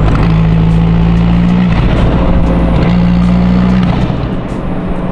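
Audi TT's turbocharged 1.8-litre four-cylinder engine running while the car is driven, holding a steady note that drops away briefly a few times.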